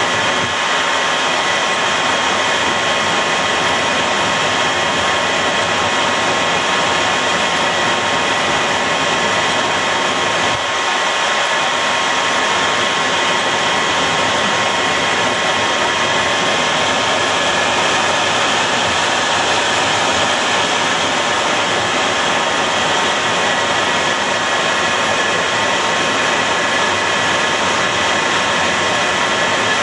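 F-14 Tomcat's jet engines running, heard from inside the cockpit: a steady, loud rushing noise with a constant high whine.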